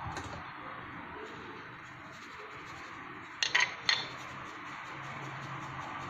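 A metal mesh sieve clinking against the rim of a glass mixing bowl while icing sugar is sifted: a quick cluster of three or four sharp clinks about three and a half seconds in, over a steady low hiss.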